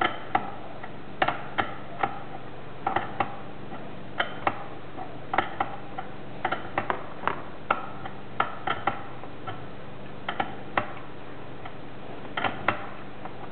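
Steel wrenches clicking and clinking against a watermaker's high-pressure tube nut and bronze fitting as the nut is loosened in short turns. The clicks are sharp and irregular, each with a brief metallic ring, sometimes coming in quick pairs.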